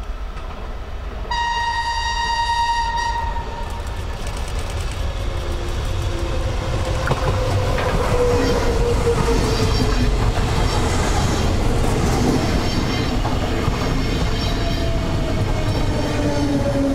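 Berlin S-Bahn class 485 electric multiple unit sounding one steady horn tone for about two seconds as it approaches. It then runs past with loud rail and wheel noise and a whine that slowly falls in pitch.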